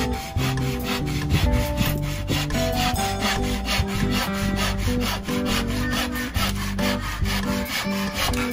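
Handsaw cutting through a pallet-wood slat in quick, even back-and-forth strokes, about four a second, with background music underneath.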